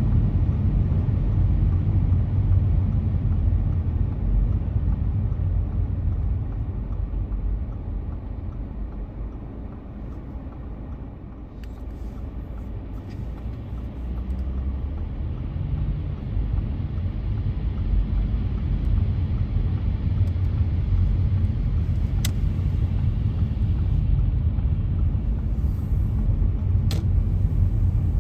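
Steady low rumble of a car driving, which eases off about ten seconds in and builds up again. Two sharp clicks come later on.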